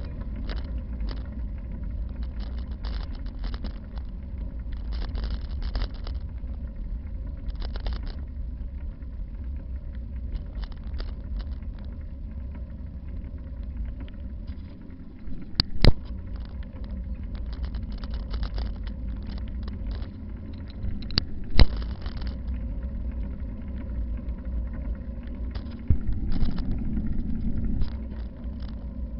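Steady wind rumble and road noise from a bicycle being ridden, with frequent light clicks and rattles and two sharp knocks, about halfway through and again about three-quarters of the way in.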